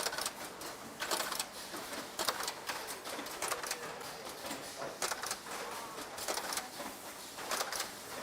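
Terminal stamping machines on an AC power-cord production line clacking in an irregular series of sharp strikes, over steady factory background noise.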